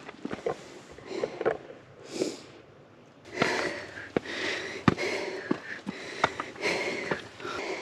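A hiker's footsteps on rock steps and loose stone: sharp clicks and scrapes of boots at an uneven pace. Between them, the hiker breathes hard from the steep climb, in bursts through the nose and mouth.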